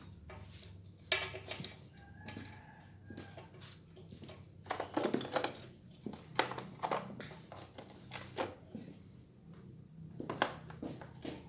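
Irregular metallic clinks and knocks, some briefly ringing, as tools and metal parts of a generator alternator are handled during disassembly, over a steady low hum.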